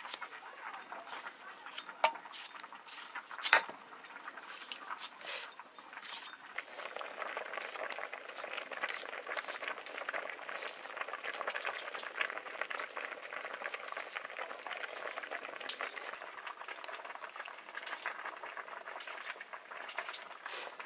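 A knife slicing peeled squash over a steel bowl, with scattered clicks and two sharp ones. About six seconds in it gives way to chamre rice boiling in an iron karahi, a steady dense bubbling.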